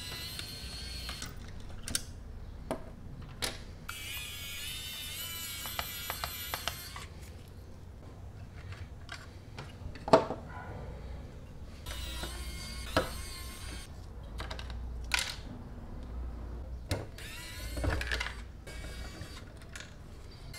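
Small electric precision screwdriver whirring in short spells as it backs screws out of a model car's chassis, with clicks and taps of small plastic and metal parts being handled. The sharpest click comes about halfway through.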